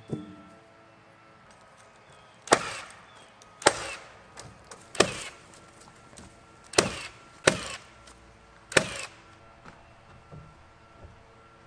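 Six sharp, loud knocks on wood, spaced about one to two seconds apart, each with a short ring after it: nails being driven into timber.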